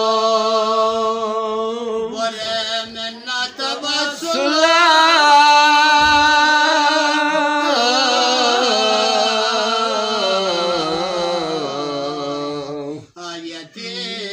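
A man singing a qasida unaccompanied, in long drawn-out notes with a wavering, ornamented line. The melody slides downward over the last few seconds and breaks off briefly near the end.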